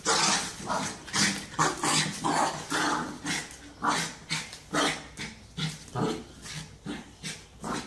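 Puppy growling and yapping in quick short bursts, over and over, while play-fighting with a cat.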